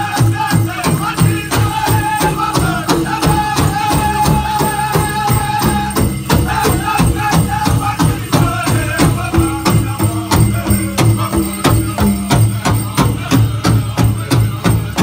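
Powwow drum group singing a chicken dance song in high-pitched voices over a steady, quick beat on a big shared drum.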